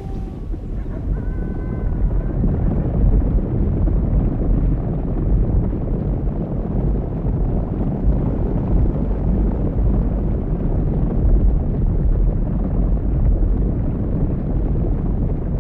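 Bison herd on the move: a loud, steady low rumble of many hooves, fading up at the start.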